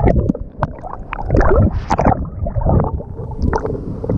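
Water sloshing and gurgling right against a waterproof action camera, in uneven surges with a few sharp knocks.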